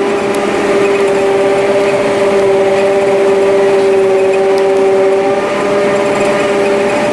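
Self-propelled forage harvester running steadily while chopping maize, heard from inside its cab: a loud, even machine drone with several steady whining tones, one of which drops out about five seconds in.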